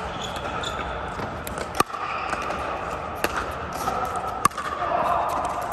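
Pickleball paddles hitting the plastic ball during a rally: a sharp pop about two seconds in, a fainter one a little after three seconds, and the loudest near four and a half seconds, over steady background noise.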